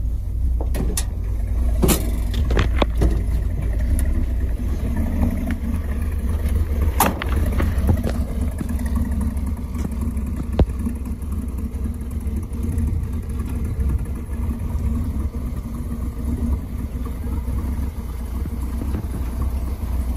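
A steady low rumble from the 1969 Ford F-250 running, its rebuilt 360 V8 under way. A few sharp knocks or rattles come in the first three seconds, another about seven seconds in and one near ten seconds.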